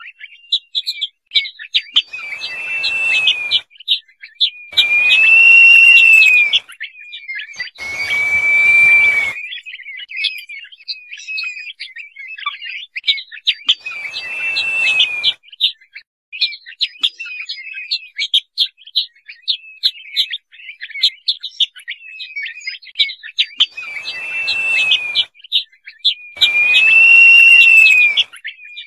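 Crested partridge (roul-roul) calling: six long, slightly arched whistles, over a near-continuous run of rapid high chirps, several of the whistles coming with a burst of hiss.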